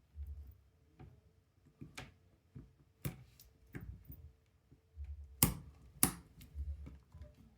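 Scattered sharp clicks and taps from a watch and small tools being handled during reassembly, with two louder clicks a little past halfway.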